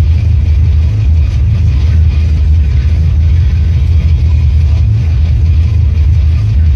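Steady low rumble of a car cruising at highway speed, heard from inside the cabin: road and engine noise.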